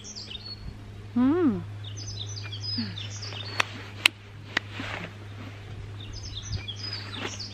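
Small songbirds chirping in short bursts. About a second in comes a brief hummed "mmm" that falls in pitch, from someone chewing food; it is the loudest sound. Three sharp clicks come near the middle, over a steady low hum.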